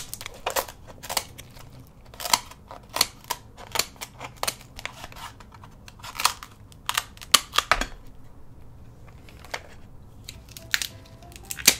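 Irregular sharp clicks and cracks of king crab shell being broken and pulled apart by hand, some snaps louder than others.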